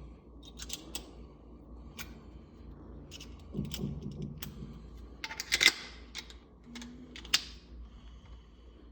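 Door knob hardware being handled and fitted: scattered sharp clicks and taps at an uneven pace, with a louder cluster of clicks about five and a half seconds in and another single loud click about two seconds later.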